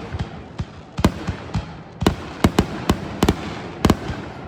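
Fireworks going off: a rapid, irregular string of a dozen or more sharp bangs, with crackling between them.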